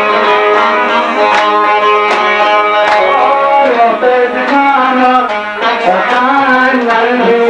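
Loud live Middle Eastern party music: a melody over regular drum beats, the melody winding up and down through the second half.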